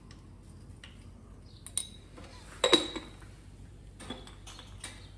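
A few clinks of a metal spoon against a jar and bowl. The loudest comes about halfway through, with a brief ring.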